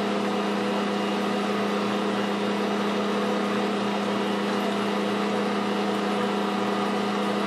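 Ankarsrum Assistent Original (AO) stand mixer running at low speed, a steady motor hum, as it stirs cream cheese batter.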